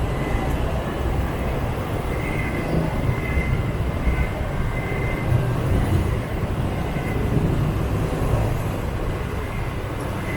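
Steady rumble of a scooter ride through city motorbike traffic: the riding motorbike's engine and road noise mixed with the surrounding motorbikes. A faint thin whine comes and goes in the first half.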